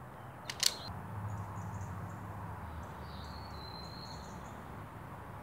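Wire strippers snapping shut on a thin wire to strip its insulation: a quick double click about half a second in, then quiet handling of the wire.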